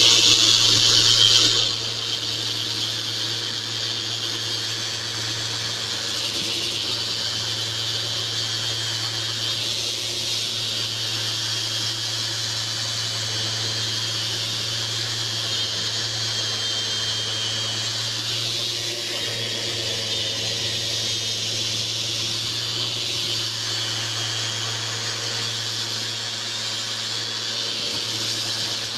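Festool sander running steadily while sanding lead paint off a wooden bench, with a dust-extraction vacuum drawing through the pad. It runs louder for the first second and a half, then settles to an even level.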